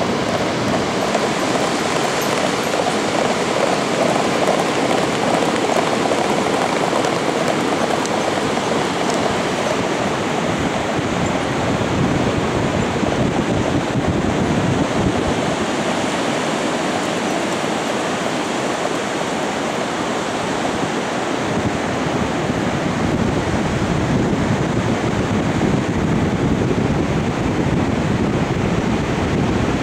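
Steady rushing noise of wind on the microphone mixed with surf, with no distinct hoofbeats standing out.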